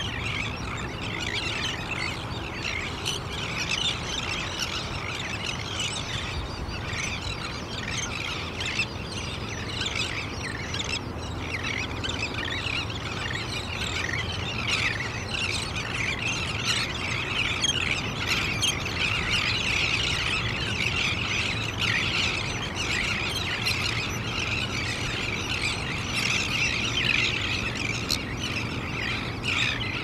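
A large roosting flock of seabirds calling all at once: a dense, unbroken chorus of harsh, high squealing calls, a little fuller in the second half.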